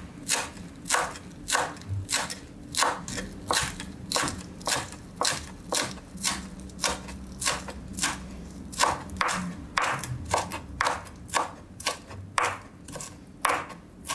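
Santoku-style kitchen knife chopping chives on a wooden cutting board: a steady run of sharp knocks of the blade on the board, about two or three a second.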